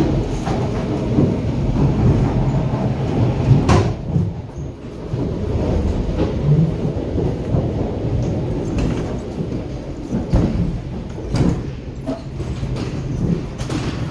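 Suburban electric train running, heard from inside the carriage: a steady low rumble broken by several sharp knocks and clatters, one of them loud about four seconds in.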